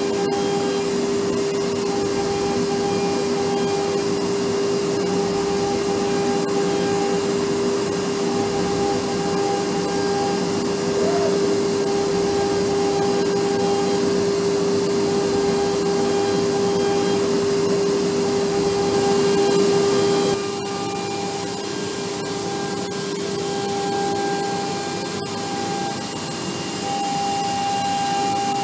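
CNC panel router milling pockets in film-faced plywood: the spindle gives a steady whine over the rush of the dust extraction and the cutting noise. The sound drops suddenly in level about twenty seconds in, then carries on.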